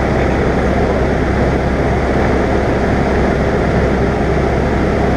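Cessna 172's piston engine and propeller running steadily in flight, a constant drone heard from inside the cockpit.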